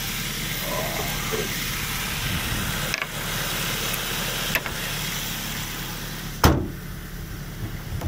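Ford Fiesta ST's engine idling as a steady low hum under a hiss, with a couple of faint clicks. About six and a half seconds in comes one loud slam as the bonnet is shut.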